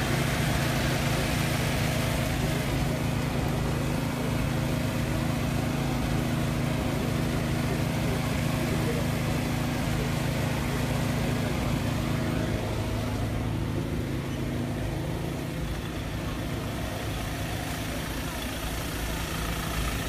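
Heavy vehicle engine idling steadily, a little quieter after about twelve seconds.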